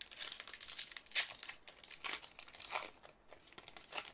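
A hockey card pack wrapper crinkling and tearing as gloved hands rip it open, with several louder sharp crackles along the way.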